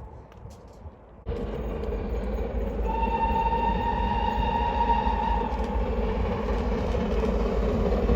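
Train running past with loud rumble and rail noise, coming in abruptly a little over a second in. Its horn sounds one steady blast of about two and a half seconds partway through.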